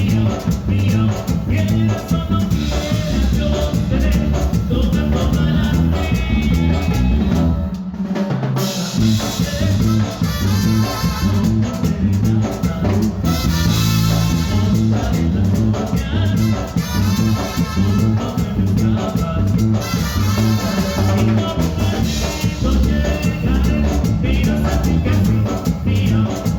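A live band playing Latin dance music with drum kit and bass keeping a steady beat. About eight seconds in, the bass and drums drop out for a moment, then the full band comes back in.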